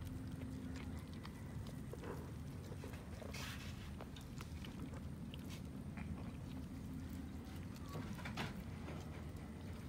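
Several cats chewing and tearing at a cooked chicken carcass: short irregular clicks and smacks, with a couple of louder scuffs, over a steady low hum.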